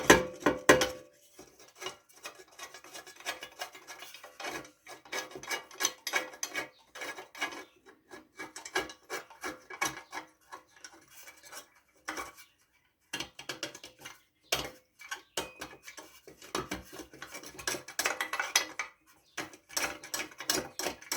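Small metal engine parts being handled and fitted by hand: irregular clinks, taps and scraping of metal on metal, with a short pause about twelve seconds in.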